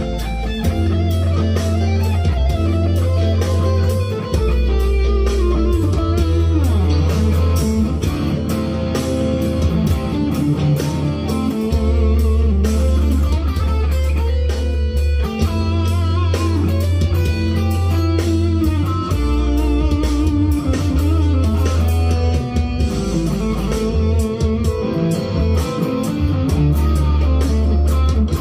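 Leo Jaymz SG-copy electric guitar played lead through an amp, single-note lines with bends sliding up and down, over a backing track with a steady bass line and drums.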